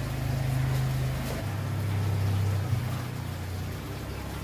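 A steady low motor hum that drops to a lower pitch about a second and a half in, with faint crinkling of plastic wrapping being handled.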